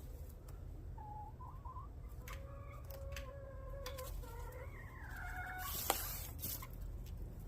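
Chickens making soft clucking calls, a few short low calls in a row, with a sharp click near the six-second mark.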